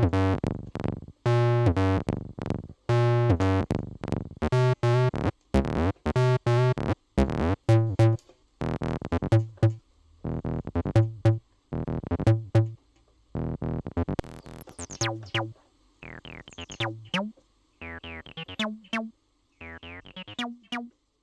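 Synthesizer playing a run of short, separate notes, heavy in the bass at first, then shorter and quieter, with sweeping rises and falls in tone about fourteen seconds in.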